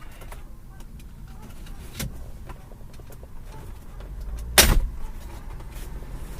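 Plastic dashboard trim clips snapping loose as a panel is pulled off by hand: a light click about two seconds in, then one loud sharp snap. A low steady hum runs underneath.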